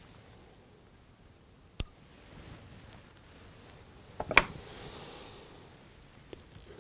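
Small fly-tying scissors snipping off the excess hackle at the vise: a sharp snip about two seconds in, then a louder click with a short rustle of handling a couple of seconds later, over quiet room tone.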